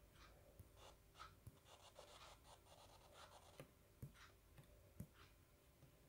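Faint taps and short scratchy strokes of a stylus on a tablet's glass screen, close to silence.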